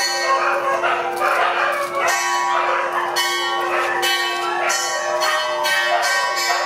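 Bell-like chiming: repeated struck, ringing notes about once a second over a steady held tone.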